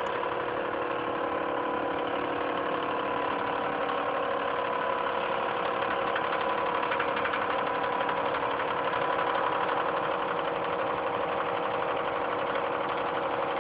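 Vertical milling machine face-milling the top of a railroad-rail steel anvil, cutting about fifteen thousandths of an inch per pass: a steady, continuous cutting noise with a steady machine hum under it.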